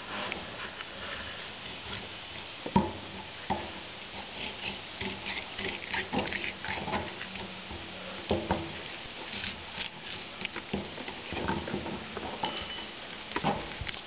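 Fillet knife cutting through a northern pike, with irregular wet slicing and scraping and a few sharp knocks of the blade.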